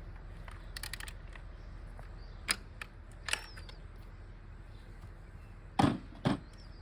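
Sharp metallic clicks of a torque wrench being used to recheck the torque on a downhill bike's crown and stem bolts, followed by two louder knocks near the end.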